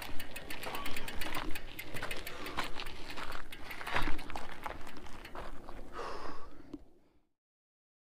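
Irregular clicking, crunching and rattling from a mountain bike on a rocky desert trail, with the bike and its mounted camera being jostled. The sound cuts off abruptly about seven seconds in.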